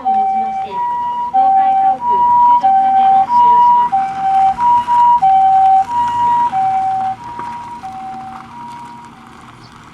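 Japanese ambulance two-tone siren alternating between a high and a lower note about every two-thirds of a second. It is loudest in the middle and fades away near the end.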